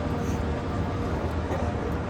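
Steady outdoor background noise: an even low rumble with hiss, with no distinct event standing out.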